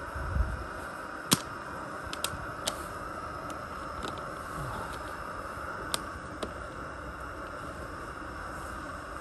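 Fire Maple FMS-X2 gas canister stove burning with a steady hiss. Over it come several light clicks and taps of gear being handled, the loudest just over a second in, and a soft low thump about half a second in.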